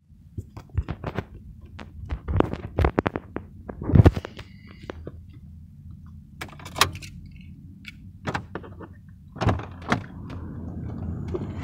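Knocks, taps and rustling from a phone being handled against clothing and a car's door trim, with a heavy thunk about four seconds in and a brief high ringing right after it. A steady noise rises near the end.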